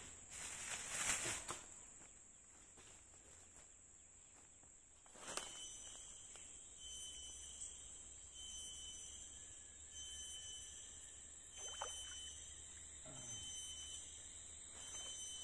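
Evening insect chorus: a steady high-pitched buzz of crickets, with short chirps repeating about once a second from about five seconds in, and a few soft knocks and rustles.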